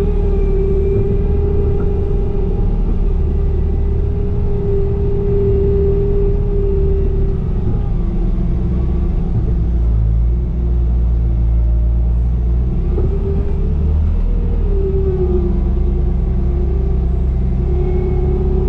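Bobcat E35 mini excavator's diesel engine running under load, a steady rumble with a strong whine that wavers and shifts in pitch as the machine works.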